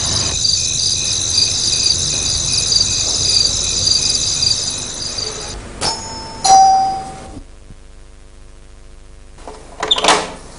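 A two-note doorbell rings ding-dong about six seconds in, after a steady high chirring over a low rumble stops. Near the end a sharp clack sounds as a door bolt is drawn.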